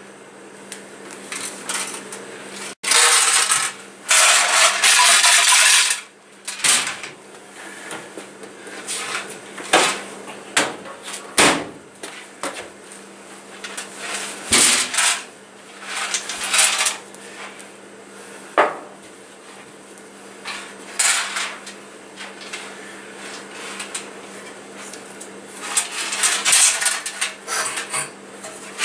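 Small decorative stones rattling and clattering inside a rusty metal scooter gas tank in irregular bursts as the tank tumbles, scouring rust from its inside walls; a steady low hum runs underneath.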